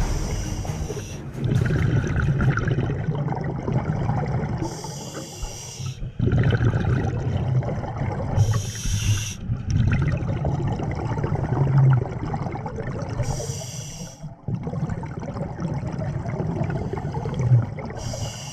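Scuba diver breathing through a regulator underwater: a hiss on each inhale about every four to five seconds, and between them the low bubbling rumble of exhaled air.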